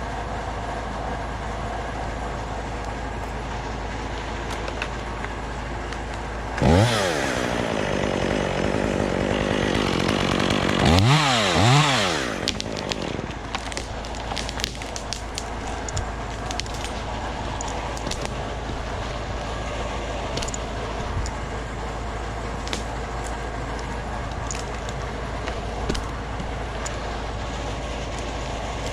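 Chainsaw revved up suddenly and cutting for about six seconds. Near the end it gives a few quick revs and is let off. A steady engine hum runs underneath throughout.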